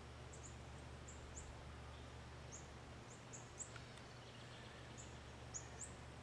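Faint, high, short bird chirps, about a dozen at irregular intervals, over a steady low background hum.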